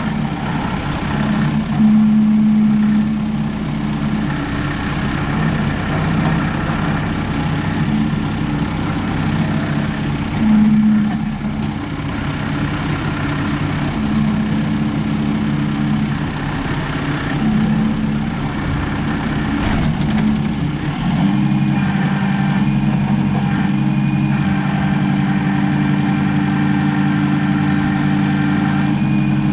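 Tractor diesel engine running while unloading logs, its note swelling briefly several times under load, then stepping up to a higher, steady speed about two-thirds of the way through.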